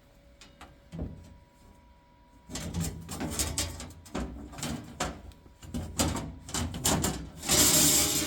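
Steel floor plate being slid and knocked into place in an excavator cab, a series of metal scrapes and clunks. They start about two and a half seconds in and get loudest near the end.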